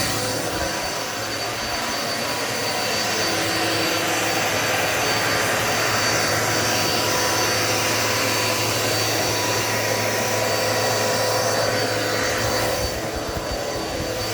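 Dirt Devil Multi-Surface vacuum cleaner running steadily, a constant motor whine over rushing airflow, dipping slightly near the end.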